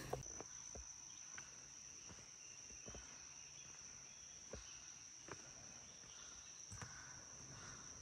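Faint, steady, high-pitched insect trill, typical of crickets, with a few soft, irregular footfalls on trail steps.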